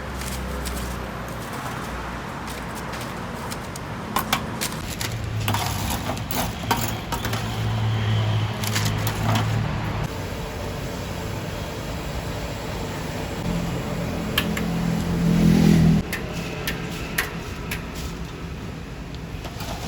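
Street-side background noise: a low motor hum that swells twice and cuts off sharply about sixteen seconds in, with scattered clicks and clinks throughout.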